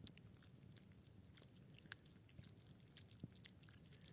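Near silence, with a few faint scattered ticks and soft wet sounds from a pot of spaghetti and tomato sauce being mixed over a small campfire.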